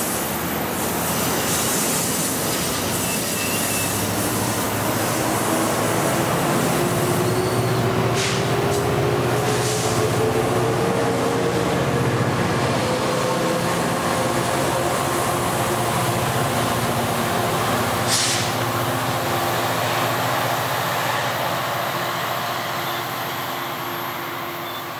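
New Jersey Transit double-deck passenger cars rolling past on a curve, with a steady rumble and wheels squealing against the rail in a slowly rising tone. A few sharp clicks come from the wheels over the track.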